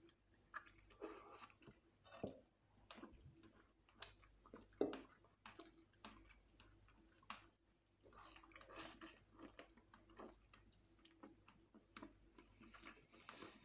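Faint chewing and mouth sounds of people eating fried chicken and spaghetti, with scattered soft clicks and smacks at irregular intervals.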